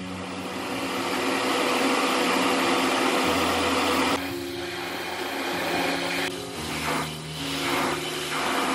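Compressed-air paint spray gun hissing as paint is sprayed onto a bare car body: one long continuous spray for about four seconds, then a pause and several short trigger bursts near the end.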